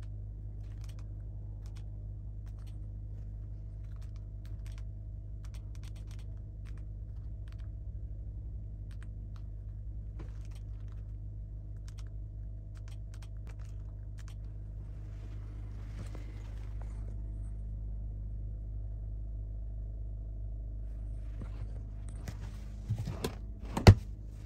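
A steady low hum with faint, scattered ticks over it. About a second before the end comes a short cluster of sharp knocks, one of them much louder than the rest.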